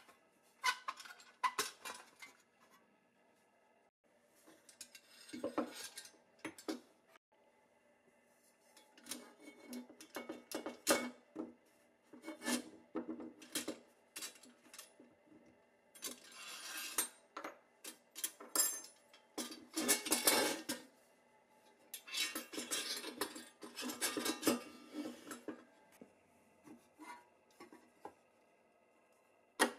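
Vintage Tonka pressed-steel toy truck being handled and taken apart by hand: light clinks, rattles and scrapes of thin sheet metal and loose axle parts, coming in irregular bursts separated by short pauses.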